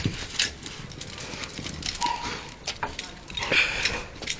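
Two dogs playing on paving slabs: scattered clicks and scuffs of their paws and claws as they scramble and trot.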